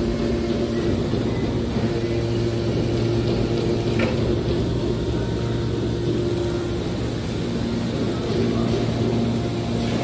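Hydraulic scrap metal baler running with a steady low hum as its ejection cylinder pushes a compressed bale of metal shavings out of the chamber. A single short click comes about four seconds in.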